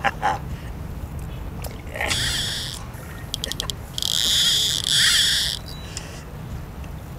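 Spinning fishing reel being worked: a short whirring burst, a quick run of clicks, then a longer, louder whirring rattle.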